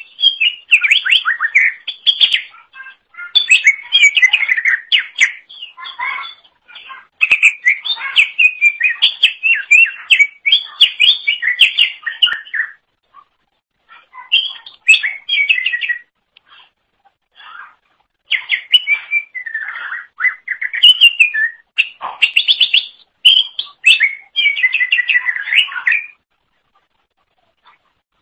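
A cucak ijo (green leafbird) in full song: fast, varied chattering and twittering phrases strung together in runs a few seconds long, with brief pauses between them.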